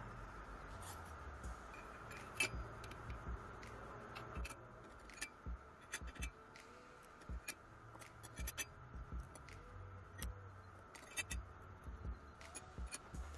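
Oiled steel friction-clutch discs being fitted by hand onto a splined shaft inside the clutch drum of a 6M12P milling machine's feed gearbox, with irregular light metallic clicks and clinks as the discs touch one another and the drum.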